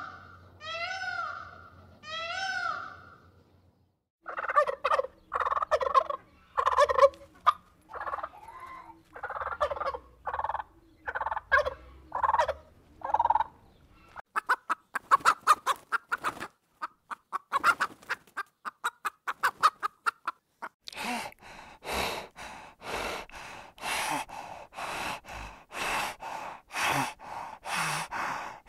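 An Indian peafowl calling a few times in arched, wailing cries, then domestic chickens clucking, with a fast run of rapid calls in the middle. Near the end comes a steady series of raspy pulses, about two a second.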